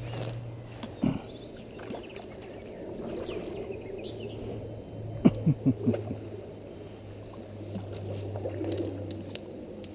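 Paddlewheel pond aerator running with a steady low hum and water churning. About five seconds in, a quick burst of four loud knocks.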